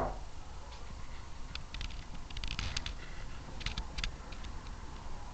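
A knuckle knock on wood right at the start, then a few seconds of faint, irregular high clicks and ticks.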